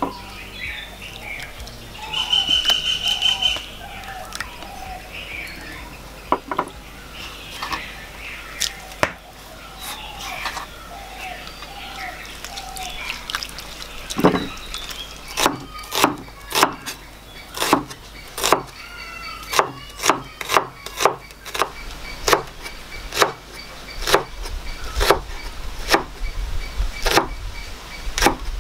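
Birds chirping through the first half. From about halfway in, a kitchen cleaver chops vegetables on a wooden cutting board: steady sharp knocks of the blade on the board, about two a second.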